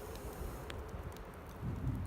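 Wood campfire burning, with one sharp crackle-pop about two-thirds of a second in and a few faint ticks, over a low rumble that swells near the end. The pops come from damp firewood.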